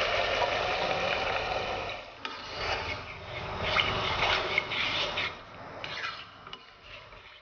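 Warm water poured from a small pot into a pot of rice and vegetables: a steady splashing pour that stops about two seconds in. Then a ladle stirs through the watery rice, with irregular stirring and scraping sounds that fade near the end.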